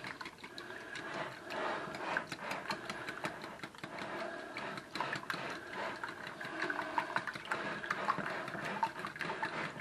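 Wire whisk beating eggs and milk in a glass bowl: rapid, continuous ticking of the wires against the glass with a liquid swish.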